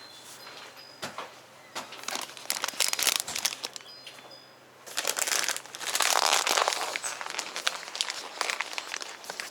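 Rustling and crinkling handling noise in two stretches, starting about two seconds in and again about five seconds in, made of many quick crackles.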